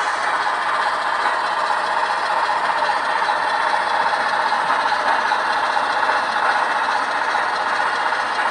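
Sound decoder in a model diesel locomotive playing a diesel engine running sound through its small onboard speaker as the locomotive drives along the layout. The sound is steady and even, with little bass.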